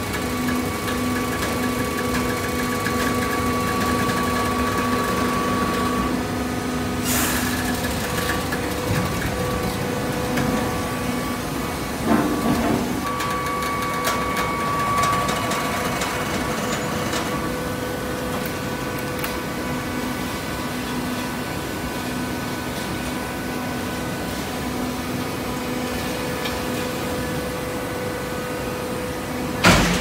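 Horizontal hydraulic baler running, its pump and motor giving a steady hum with a whine over it. Louder clatters come about seven and twelve seconds in, and there is one sharp knock near the end.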